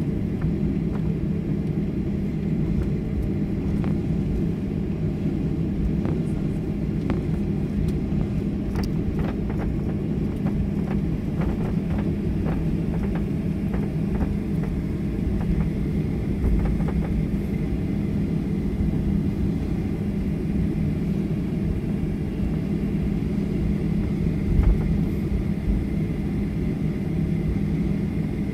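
Cabin noise inside a Boeing 737-900 taxiing: a steady low rumble of its CFM56 engines at low thrust and the rolling gear, with scattered light knocks and rattles. A faint steady whine comes in about halfway through.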